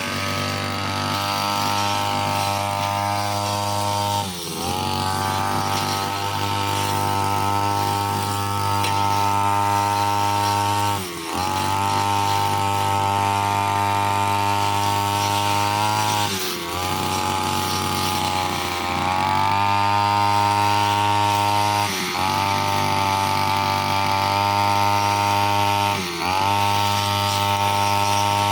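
Brushcutter engine running at high revs while cutting, its pitch dipping briefly and recovering five times.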